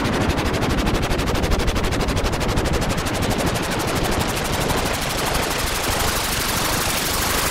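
Futuristic sound effect: a loud, dense, rapid pulsing rattle that runs at a steady rate and level, filling the low rumble and the high hiss alike.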